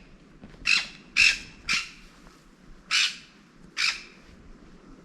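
A bird giving five short, harsh squawking calls in quick succession, the first three about half a second apart and two more after a short pause.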